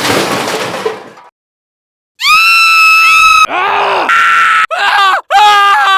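A short noisy crash that fades out over about a second, then, after a brief gap, a loud stock sound-effect scream: one long high cry followed by several shorter wavering wails.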